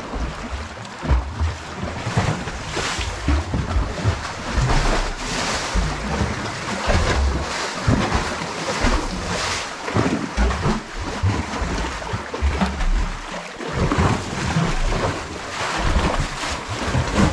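Choppy lake water lapping and splashing against a sandstone cliff and a sea kayak's hull, in uneven surges, with wind buffeting the microphone.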